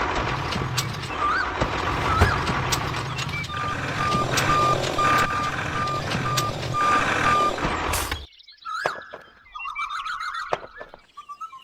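Heavy vehicle's engine running, with a reversing alarm beeping about twice a second for several seconds. About eight seconds in the engine sound cuts off suddenly, and fainter wavering high tones follow.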